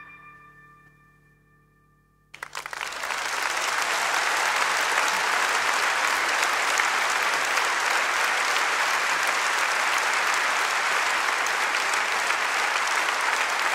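Large concert audience applauding, breaking out suddenly a little over two seconds in and keeping up steadily. Before it, the song's last ringing note fades away.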